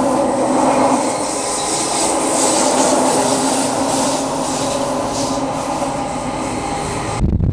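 Rhaetian Railway ABe 8/12 electric railcar heard from inside the cabin while running: steady running noise with several thin, steady high tones over it. It stops abruptly near the end.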